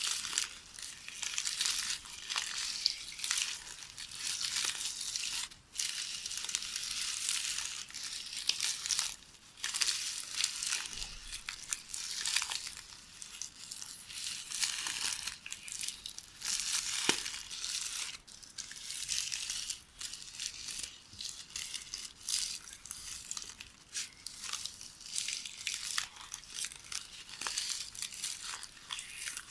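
VHS videotape being knitted by hand, the tape crinkling and crackling in short, repeated bursts of rustle with a few sharp ticks.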